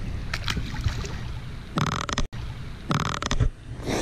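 Wind buffeting the camera microphone, a steady low rumble, with two short louder noises about two and three seconds in.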